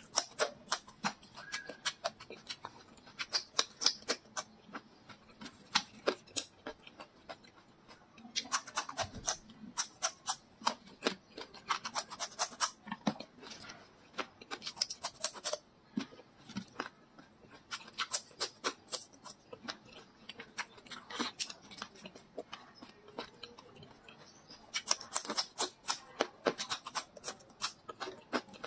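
Close-miked crunching and chewing of raw red chili peppers: runs of crisp crackles in bursts, with short lulls between bites.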